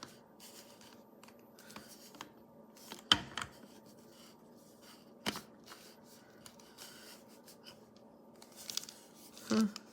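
Plastic lid of a small electric coffee grinder being turned and pressed against the grinder body as it is tried in place: faint scraping and rubbing, with sharp plastic clicks about three and five seconds in and a few knocks near the end. The lid is not seating into its locked position.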